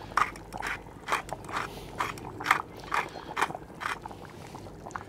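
Hand pepper mill being twisted over the pot, grinding pepper in short crunchy rasps about twice a second, stopping about four seconds in.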